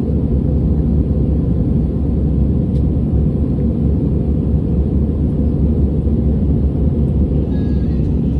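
Steady low rumble of cabin noise inside an airliner in flight: engine and airflow noise.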